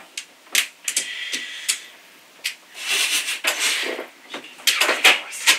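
Plastic mahjong tiles clicking and clacking as players draw, set down and discard them on the felt top of an automatic mahjong table, in a string of irregular sharp knocks with some sliding between them.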